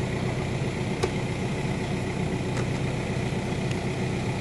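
Diesel engine of a Toyota LJ-series Land Cruiser idling steadily, with one short knock about a second in as a hoe works the root-filled soil.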